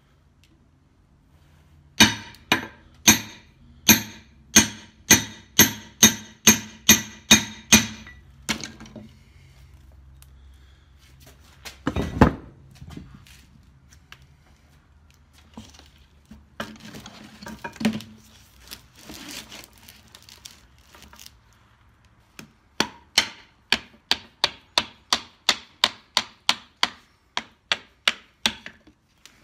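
Hammer blows driving the countershaft out of a 1953 Dodge three-speed transmission case through a wooden dowel. A run of about a dozen sharp strikes, one heavier thud, some handling noise, then a faster run of about twenty strikes near the end.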